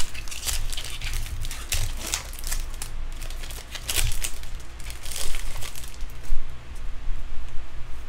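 Foil wrapper of a Bowman baseball card pack being torn open and crinkled in the hands: a dense run of sharp crackles that thins out after about six seconds, over a steady low hum.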